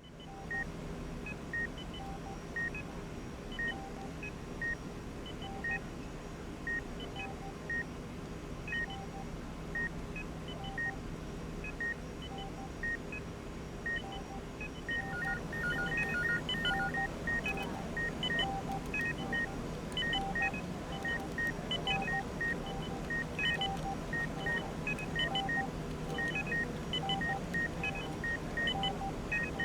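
Hospital medical equipment beeping in a regular pattern, about once a second at a few fixed pitches, over a low steady hum. About halfway a quicker run of beeps joins in and the background noise grows louder.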